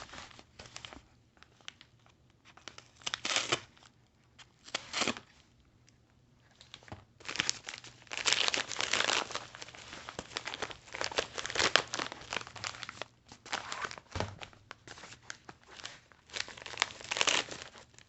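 Topps Now card packaging being torn open and crinkled by hand: a few short rustles at first, then about seven seconds in a longer run of nearly continuous tearing and crinkling.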